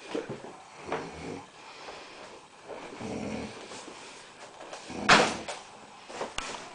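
A sleeping man snoring, with rough, rasping breaths near the start, about a second in and about three seconds in. About five seconds in comes a short, loud clatter, the loudest sound here, followed by a few sharp clicks near the end.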